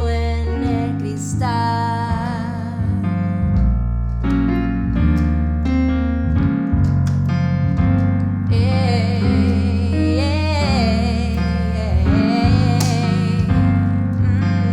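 Hip-hop music: electric piano chords over deep sustained bass and a steady beat, with a wavering melodic line coming in over the second half.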